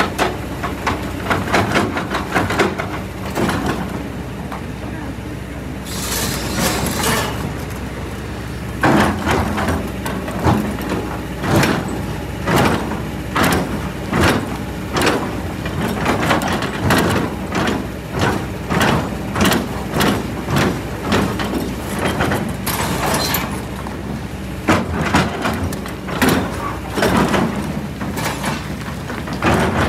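Kobelco hydraulic excavator's diesel engine running steadily under load while the bucket works a large boulder, with repeated knocks and scrapes of rock and metal. Two short hissing bursts come about six seconds in and again near twenty-three seconds.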